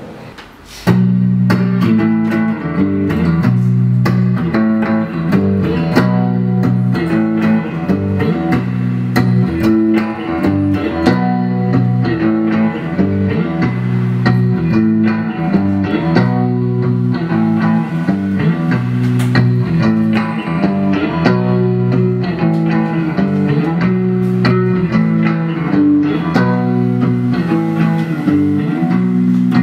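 Electric guitar played through an amplifier, a repeating riff of low notes, starting abruptly about a second in.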